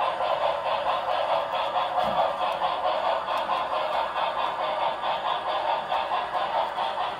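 HO scale model train running on its track, giving a steady rolling rattle that pulses several times a second.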